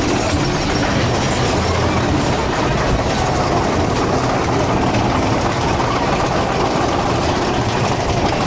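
Big Thunder Mountain Railroad mine-train roller coaster running along its track: a steady, loud rumble and rattle of the train's wheels and cars.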